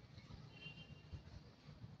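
Near silence: faint outdoor background with one short, faint bird chirp about halfway through.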